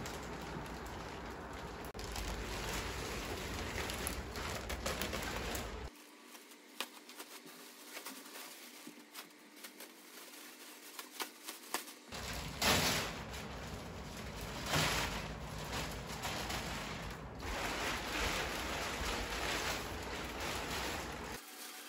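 Plastic film crinkling and crackling around a Zinus hybrid spring mattress as it unfolds and the wrap is pulled off. It goes quieter for a while near the middle, then the crackling comes back louder until near the end.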